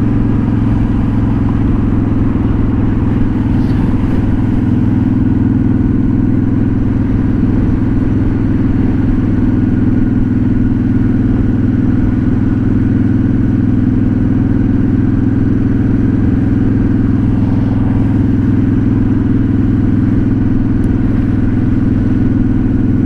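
A 2007 Honda Shadow Spirit 750's V-twin running steadily through a Cobra Streetrod Slashdown exhaust, cruising in third gear at about 30 mph with an even, unchanging engine note.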